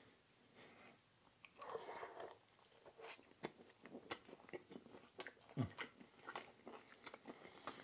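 A person chewing a mouthful of food, with many small sharp mouth clicks and a louder bite about one and a half seconds in.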